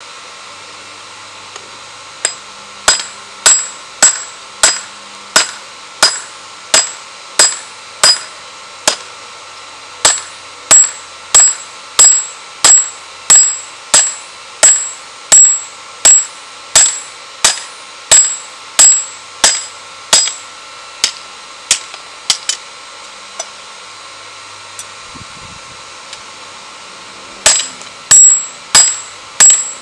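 Ball-peen hammer forging hot steel on a round steel block anvil: a steady run of ringing blows about one and a half a second. Some lighter taps come about two-thirds through, followed by a pause of a few seconds before the blows start again near the end.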